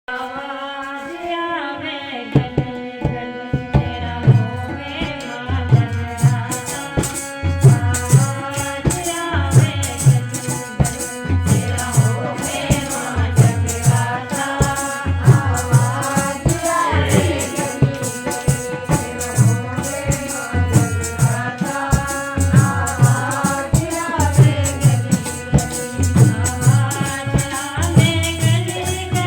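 Devotional bhajan music: a melody over a steady hand-drum beat with a rattling shaker, the percussion coming in about two seconds in.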